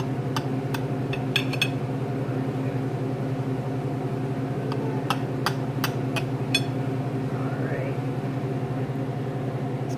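Knife cutting a frittata on a ceramic plate: two clusters of sharp clicks from the blade meeting the plate, one about half a second in and one around the middle. A steady mechanical hum sounds underneath throughout.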